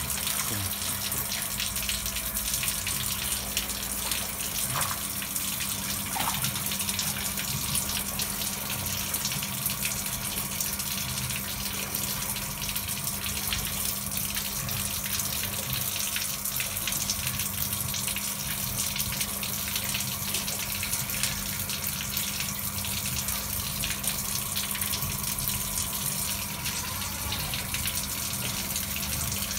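Water running and splashing steadily in a concrete fish pond as it is drained for cleaning, over a steady low hum.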